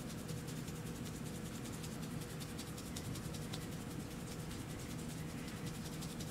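A hand rubbing briskly up and down a sweater-covered forearm in a self-massage: faint, quick, rapidly repeated brushing strokes of palm on fabric that thin out over the second half, over a low steady hum.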